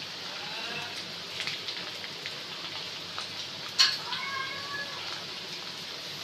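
Chicken balls deep-frying on a low flame in a wok of oil, a steady sizzle. A sharp click about four seconds in is followed by a brief wavering tone.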